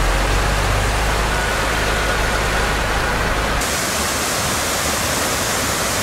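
Low road and engine rumble of a Dodge Ram 3500 turbo Cummins diesel pickup heard while driving. About three and a half seconds in, it cuts sharply to the steady rush of a creek waterfall pouring over a rock ledge.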